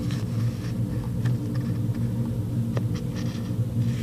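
A steady low electrical or mechanical hum in the room, with a few soft clicks and rustles of sticker sheets being handled.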